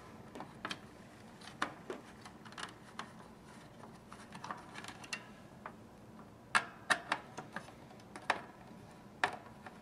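Light clicks and ticks of a hand screwdriver turning small screws out of a plastic candy-wheel plate, with a few sharper clicks about two-thirds of the way through.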